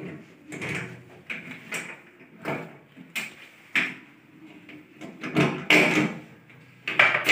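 Irregular metallic clanks and scrapes of a long-handled wrench working the transit bolts out of the steel back panel of a Bosch washing machine, about ten knocks in all, the loudest near the end.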